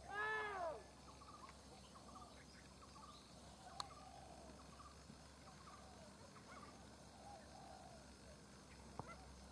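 Animal calls: one loud call that rises and falls in pitch within the first second, then fainter short calls repeating through the rest, with a single sharp click just under four seconds in.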